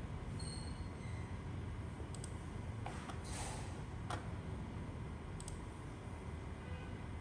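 A few faint clicks of a computer mouse, spaced a second or two apart, over a steady low hum.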